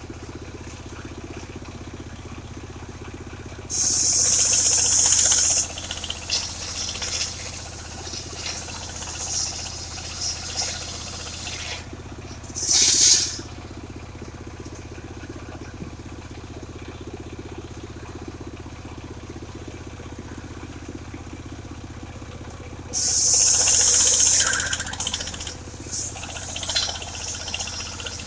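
Engine of a portable circular sawmill running steadily, with two loud bursts of high, hissing noise about two seconds long, one near the start and one near the end, and a shorter one midway, among light clattering.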